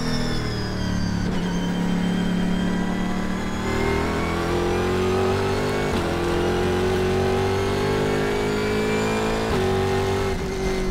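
Pratt & Miller Cadillac CTS-V.R race car's engine heard from the cockpit under hard acceleration, its pitch climbing steadily through the gears. Gear changes break the rise about a second in and again near the end.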